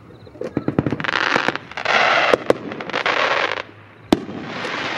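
Red Apple Bonsai 40-shot fireworks cake firing: a quick run of launch thumps in the first second, then several bursts with long hissing trails, broken by sharp cracks around the middle and just after four seconds.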